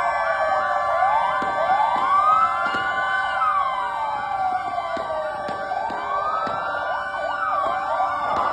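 Several fire engine sirens wailing at once, their slow rising and falling tones overlapping out of step, over steady held siren tones.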